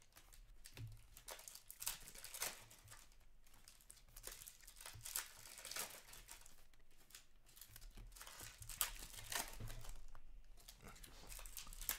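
Trading-card pack wrappers crinkling and hockey cards rustling as they are handled, a run of irregular short crinkles and clicks.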